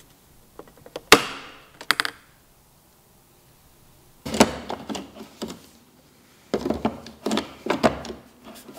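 Clicks and scrapes of the metal and plastic parts of an espresso machine's built-in burr grinder being handled: a sharp metallic snap with a short ringing tail about a second in, then two spells of rattling and clicking, the second as the bean hopper is set back on and seated.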